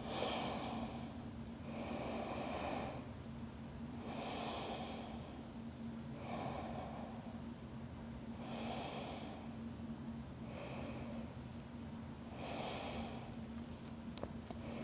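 A woman breathing slowly and deeply in yoga breaths: about seven soft breaths, in and out in turn, each starting roughly two seconds after the last. A faint steady hum runs underneath.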